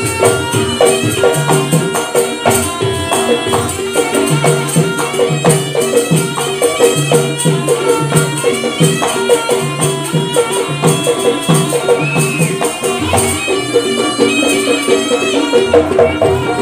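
Jaranan dance music: a traditional Javanese ensemble playing a fast, steady rhythm of drums and jingling percussion under a melody.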